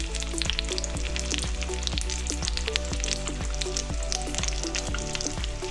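Whole cuckoo wrasse frying in melted butter in a pan, a steady sizzling and crackling. Background music plays underneath.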